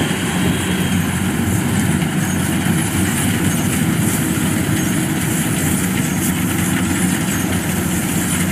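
Kubota DC-105X crawler combine harvester running steadily under load as it cuts and threshes flattened rice. Its diesel engine and threshing gear give a constant, even machine sound.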